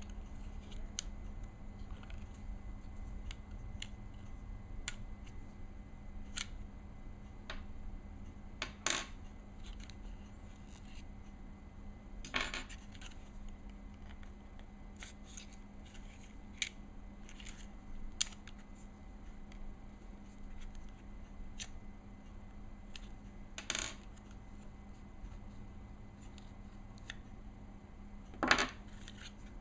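Small steel and polymer Glock pistol parts being handled and set down during disassembly: scattered light clicks and clinks, with about four louder clacks, over a low steady hum.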